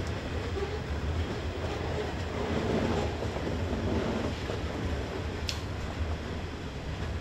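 Distant diesel locomotives hauling a heavily loaded coal train uphill: a steady low engine rumble under a haze of noise, swelling a little in the middle. A short sharp click sounds about five and a half seconds in.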